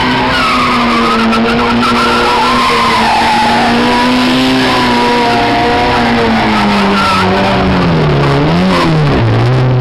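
Car engine held at high revs while the tyres spin and skid on asphalt, the car drifting in circles in its own tyre smoke. From about six seconds in, the revs fall and are blipped up and down several times.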